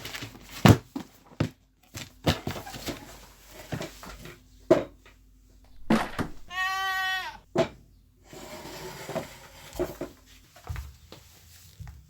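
A goat bleats once, a call of about a second with a wavering pitch, amid scattered knocks and thuds.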